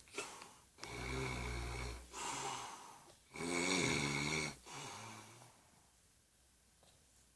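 A man snoring in his sleep: a run of loud, rough, low-pitched snores about every second or two, which die away about five and a half seconds in.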